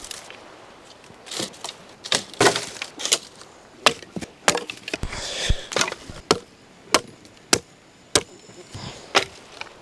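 Dry firewood being broken up: a string of about fifteen sharp wooden cracks and knocks at an uneven pace, with a brief rustle midway.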